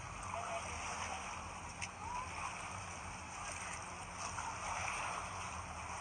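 Shallow seawater washing and trickling among shore rocks, a steady wash of noise.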